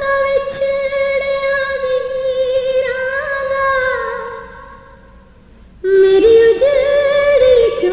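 A woman singing a noha, a Shia lament for Muharram, in long held, wavering notes. The first phrase fades out about four seconds in, and after a short pause a new phrase begins about six seconds in.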